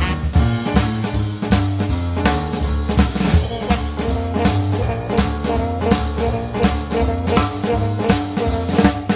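Upbeat jazzy instrumental music with a drum kit keeping a steady swing beat under held bass and melody notes.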